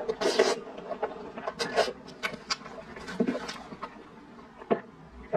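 Close-miked eating: a loud slurp of instant noodles at the start, then wet chewing and mouth smacks, and sips from a glass mug about three to four seconds in.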